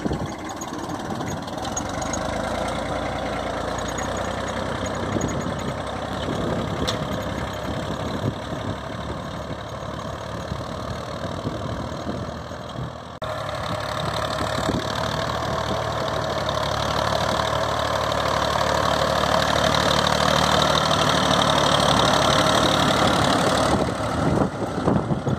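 Massey Ferguson 1035 tractor's three-cylinder diesel engine running steadily under load as it pulls a spring-tine cultivator through the soil. The sound jumps louder and brighter about halfway through.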